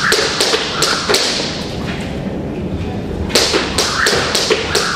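A run of sharp taps and thumps, two to four a second, pausing for about two seconds in the middle before starting again.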